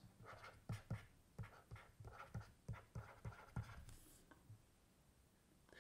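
Faint taps and light scratching of a stylus writing on a tablet screen, heard as a string of short ticks that stop about four and a half seconds in.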